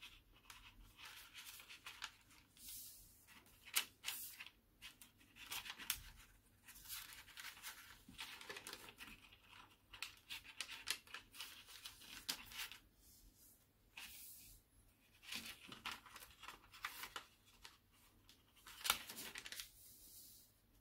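A sheet of creased origami paper rustling and crinkling as its folds are reversed by hand, mountain folds pushed into valley folds and back. It is soft and irregular: bursts of crackling and swishing with brief pauses between them.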